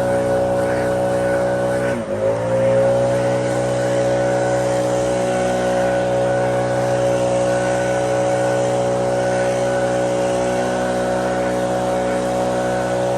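Lawn mower engine running at a steady high speed; about two seconds in, its pitch dips sharply and climbs back as the engine bogs briefly under load and recovers.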